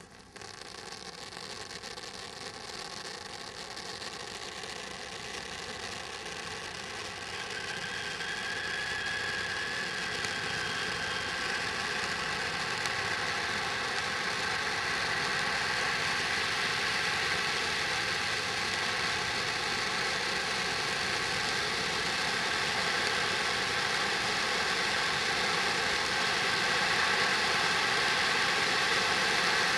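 Snowdonia firework display fountain spraying a tall column of silver sparks: a steady rushing hiss that slowly grows louder as the spray builds.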